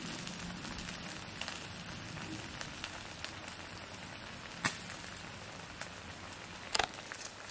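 Seafood ajillo bubbling and sizzling in olive oil in a cast-iron skillet: a steady crackling hiss with scattered small pops, and a sharper pop a little past halfway and another near the end. The water in the shrimp and squid makes the oil bubble up hard.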